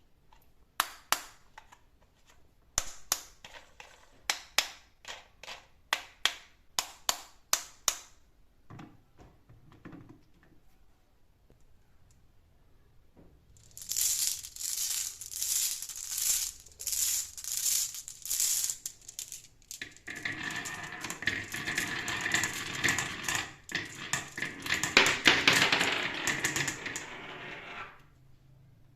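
Marbles clacking and rolling on a wooden HABA marble run. First comes a string of sharp clicks and knocks; after a lull there is a rhythmic rattling; from about twenty seconds in, many marbles rattle down the track together in a dense continuous clatter.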